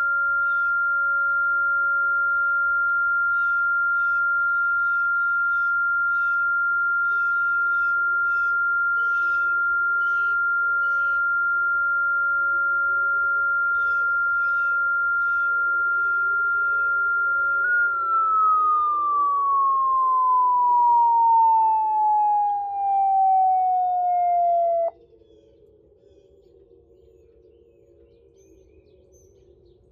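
Police car electronic siren holding a steady, high single-pitched alert tone, then about two-thirds of the way in sliding down in pitch over several seconds like a tornado siren winding down, and cutting off abruptly. A fainter, lower steady siren tone continues behind it, with birds chirping.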